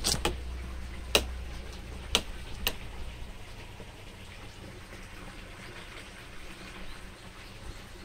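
A few sharp clicks or knocks, five in the first three seconds, over a low rumble that fades after about three seconds, leaving a faint steady hiss.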